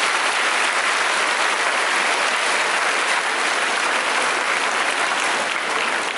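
A church congregation applauding steadily throughout, with the clapping starting to thin out right at the end.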